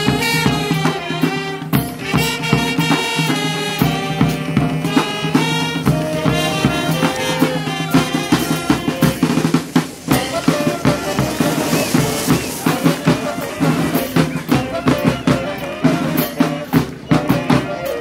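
Marching brass band playing a tune: brass melody over steady snare-drum and bass-drum beats.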